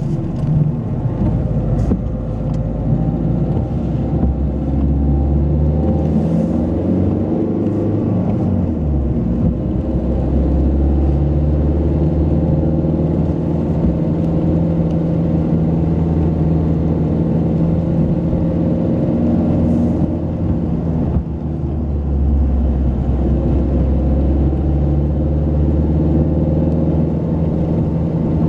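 Car engine and road noise heard from inside the cabin while driving, a steady running note that shifts in pitch a few times, with a brief dip about three quarters of the way through.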